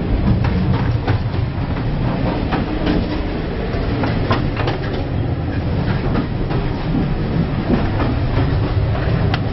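Steam-hauled railway carriage running along the track, heard from inside the coach: a steady low rumble of the wheels on the rails with frequent irregular clatter and knocks.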